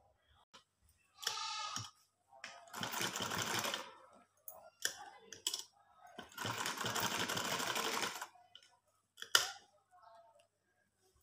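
Domestic sewing machine stitching in short runs: two bursts of rapid rattling needle strokes, about one and two seconds long, with a shorter burst and a few sharp clicks between as the fabric is shifted.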